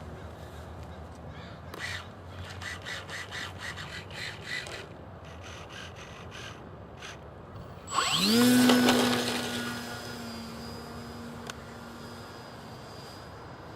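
RC model airplane engine throttled up about two-thirds of the way in: its pitch rises quickly to a steady high whine that is loudest at first and then fades. Before it, a short run of sharp, evenly spaced clicks.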